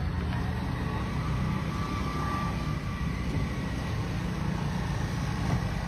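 Steady low rumble of a motor vehicle engine running, with a faint thin whine above it for a second or two.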